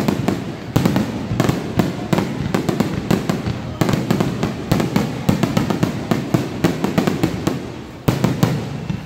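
Aerial fireworks bursting overhead in a dense barrage: rapid bangs and crackling, several a second, with a heavier boom about eight seconds in.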